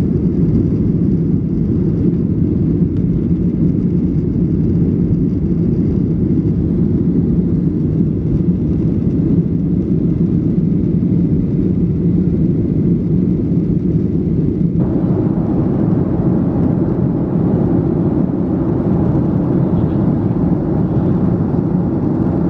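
Cabin noise inside a Southwest Airlines Boeing 737 in flight: the jet engines and the airflow past the fuselage make a steady, low noise with no break. About fifteen seconds in, a little more hiss joins it.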